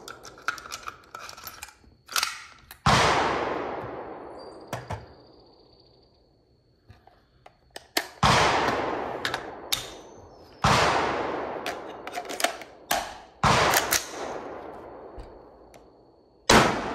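Colt SOCOM AR-15 rifle fired in single shots, about six of them with uneven pauses between, each ringing out in a long echoing tail. It is being test-fired with its complete Colt bolt carrier group to check a fault in which the bolt locks back when it shouldn't, and after these shots it locks back again.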